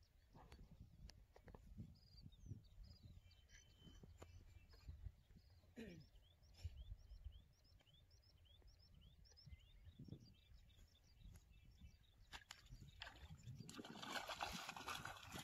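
Short high chirps of small birds over a faint low rumble; about a second and a half before the end, a hooked fish splashes and thrashes at the water's surface, the loudest sound here.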